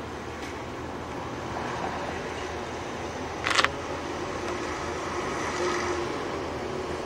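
Narrow-gauge diesel railcar running slowly at low speed, a steady low engine rumble. About halfway through comes one short, sharp burst of noise.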